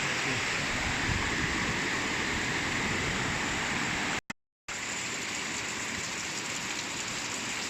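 Steady rushing of river water, broken by a brief gap of silence a little past halfway, after which it is a little softer.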